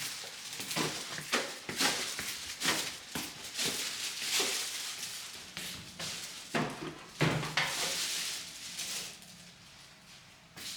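Irregular knocks, clacks and rustling of household objects being handled, a sharp hit every second or so, quieter in the last couple of seconds.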